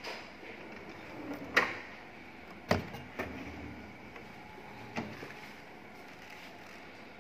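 Häfele kitchen cabinet drawers and a pull-out basket being slid on their metal runners, with about five sharp knocks and clicks as they stop or close. The loudest knocks come about one and a half and nearly three seconds in.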